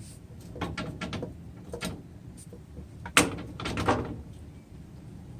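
Clanks, knocks and scraping of steel stock being shifted and reset in a metal-cutting bandsaw's vise, with one sharp loud clank a little past three seconds in followed by a brief rattle.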